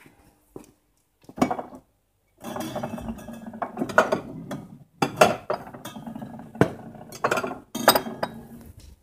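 Crockery clinking and clattering as plates are taken out of a kitchen cupboard: one clink about a second in, then a few seconds of rattling with several sharp clinks.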